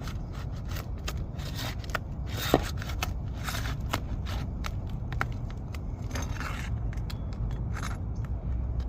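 Asphalt roof shingle being pulled loose from its fasteners, with irregular scraping, crackling and clicking as it tears free. A single sharp ringing click comes about two and a half seconds in. A steady low rumble runs underneath.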